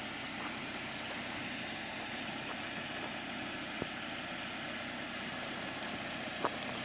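Jeep Wrangler running steadily, with a short knock about four seconds in and another near the end.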